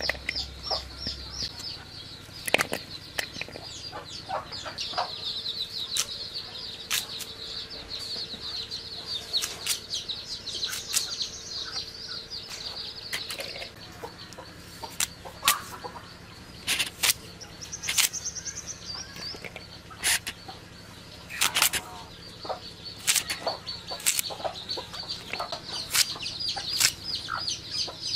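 Sharp crisp clicks, one after another at uneven intervals, from a hand-held curved blade slicing through raw kohlrabi and potato. Behind them runs continuous high-pitched chirping of birds.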